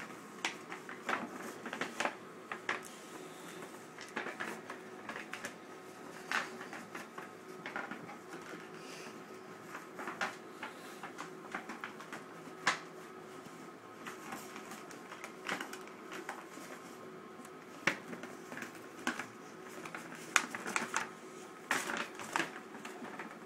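Brown paper bag crinkling and rustling in irregular sharp crackles as a 13-week-old Great Dane puppy bites and paws at it.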